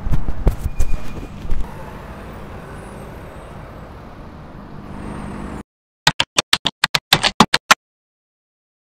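Street traffic noise around a car at an intersection, with a few loud knocks in the first two seconds. It cuts off suddenly to silence, then a logo sting plays: a quick run of about a dozen short, sharp sounds in under two seconds, followed by silence.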